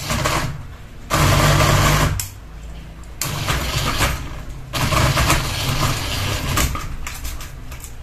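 Ceiling fan running with only one blade and a ball of yarn hanging from its hub, rattling and shaking in loud, uneven surges as it spins badly off balance.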